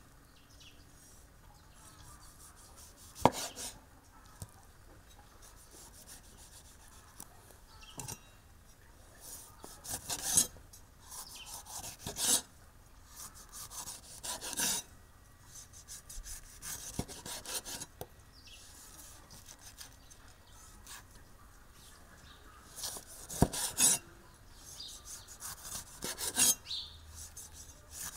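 Cleaver slicing through a ripe tomato and then a green bell pepper on a wooden cutting board. Scattered separate knife strokes, each a short crisp cut through the flesh, some ending in a sharp knock of the blade on the wood.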